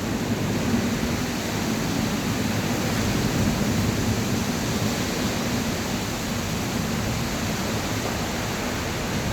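Heavy rain falling in a steady downpour, an even hiss that holds at one level throughout.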